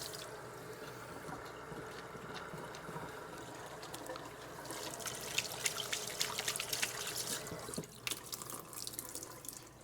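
Kitchen tap running into the sink while hands are washed under it, the splashing busier in the middle.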